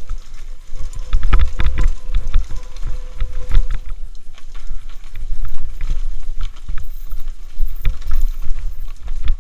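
Mountain bike rattling and knocking over a rocky trail at speed, many short clatters from the chain and frame. Wind buffets the camera's microphone as a low, continuous rumble underneath.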